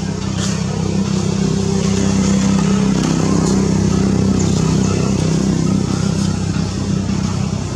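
An engine running with a steady low hum, swelling to its loudest in the middle and easing off near the end.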